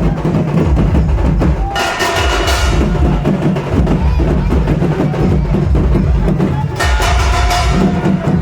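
Sambalpuri dhol and nisan drums playing a dense, continuous beat, with two brief brighter bursts, about two seconds in and near the end.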